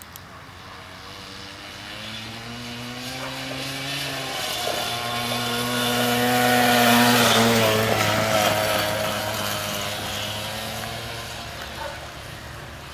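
Motor of a greyhound track's mechanical lure running as it pulls the lure round the rail. It hums steadily, grows louder to a peak about halfway through as the lure sweeps past, then fades.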